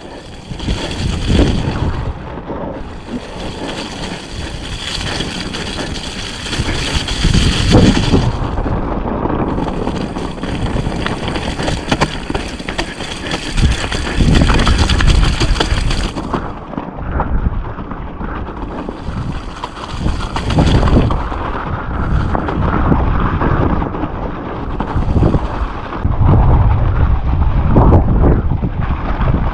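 Mountain bike descending a wet, rocky trail: tyres rumbling and scrabbling over rock and loose ground, with clattering from the bike, and strong wind buffeting the microphone. A high hiss comes and goes in long stretches over a steady low rumble.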